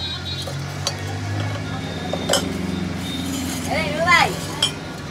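A steel tyre lever clinking against a motorcycle's alloy wheel rim as it prises the tyre bead over the rim edge: three sharp metallic clinks, the loudest about two seconds in. A voice calls out briefly near the end over a low steady background hum.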